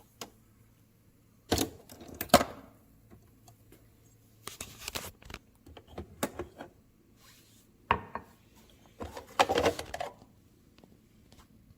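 Hard objects being handled: a series of short knocks and clatters, the loudest about a second and a half, two seconds and nine and a half seconds in.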